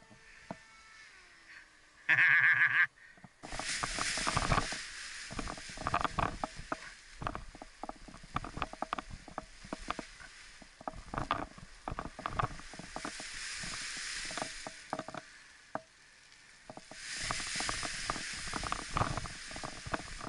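Wind rushing over the action camera's microphone, with the rustling and irregular snapping of an Edel Power Atlas paraglider canopy and its lines as the wing is kited overhead. A short loud buzz comes about two seconds in, just before this starts.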